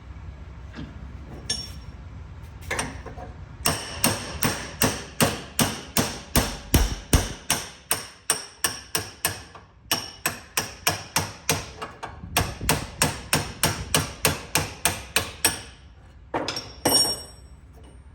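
Hammer striking metal: two long runs of steady blows at about three a second with a short break between, then a few separate harder hits near the end that leave a brief metallic ring.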